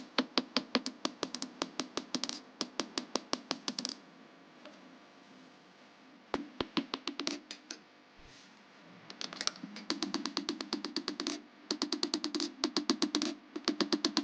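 Rapid hammer strikes on steel from a vehicle leaf spring being forged into a knife blank, about five blows a second in runs, with a pause of a few seconds near the middle.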